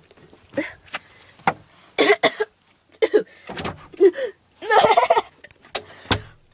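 Short bursts of a young man's non-word vocal sounds, laughter among them, coming in quick fits with the loudest about two-thirds of the way through. A few sharp knocks come in between.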